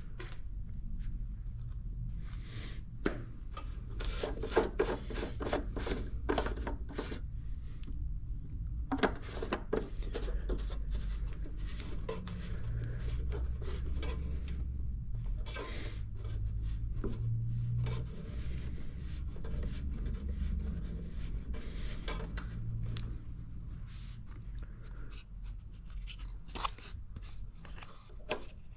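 Hand work with tools and small parts: scattered clicks, knocks and scraping or rubbing sounds, busiest in the first half, over a low steady hum.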